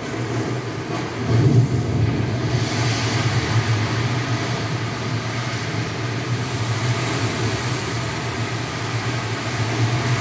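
A deep, steady rumbling drone from the show's soundtrack, swelling briefly about a second and a half in.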